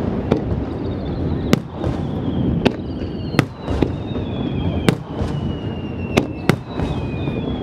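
Aerial fireworks shells bursting in a string of sharp bangs, roughly one or two a second, over a constant low rumble, with thin high whistles sliding slowly down in pitch.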